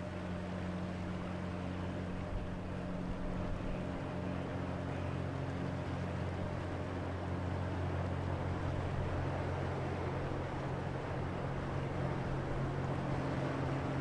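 Lake freighter John G. Munson passing close by: a steady low drone from its engine and propeller under the rushing churn of its wake. About seven seconds in the hum shifts pitch slightly and grows a little louder as the stern goes by.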